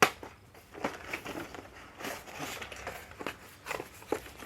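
Cardboard box and packaging being handled: a sharp knock at the start, then scattered taps and knocks with a stretch of rustling about two seconds in.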